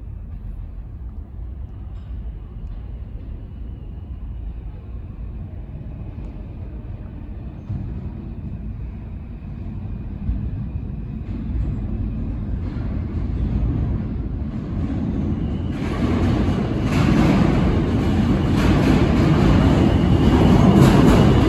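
New York City subway train approaching the station, a low rumble that grows steadily louder, then turns sharply louder and brighter about three-quarters of the way through as the train draws near.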